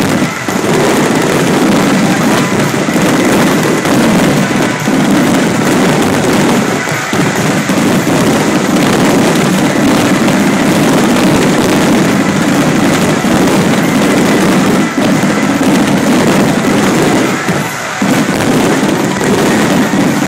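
Aerial firework shells bursting in a loud, unbroken barrage, one burst running into the next with hardly a gap.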